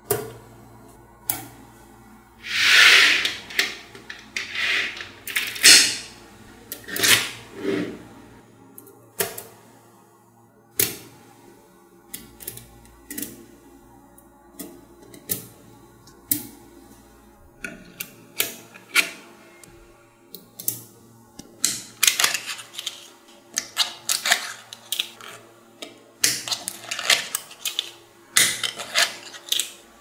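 Small magnetic balls clicking and clacking as clusters of them are snapped onto the model, with a few longer rattles of many balls shifting together. The clicks come thickest near the end.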